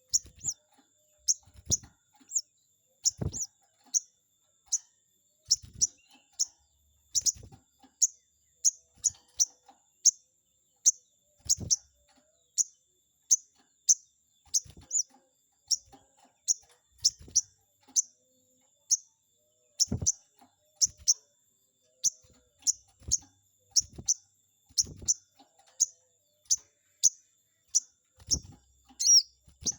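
Sogon bird calling: a fast series of short, sharp, high-pitched 'cuiit' notes, about one and a half a second, kept up without a break, with a few dull thumps among them.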